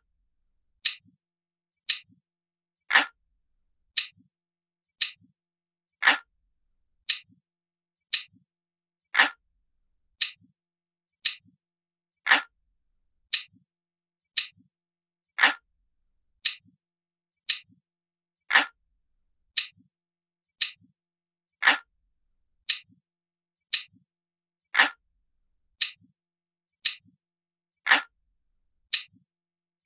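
Crisp, glass-like clock ticking, one tick about every second. Every third tick is louder and fuller, and each tick has a faint second click just after it.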